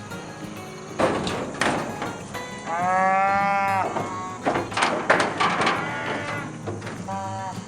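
Cattle bawling: one long, drawn-out call about three seconds in and a shorter one near the end, with rougher, noisier calls in between.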